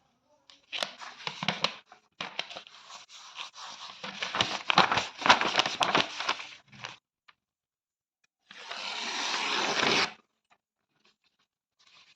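Paper being torn: a run of ragged, crackly rips over the first seven seconds, then one smooth, continuous tear lasting about a second and a half near the end.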